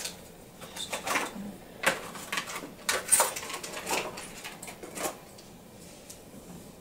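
Irregular crinkling of clear plastic packaging and small handling clicks as new fishing reels are unpacked, dying down about five seconds in.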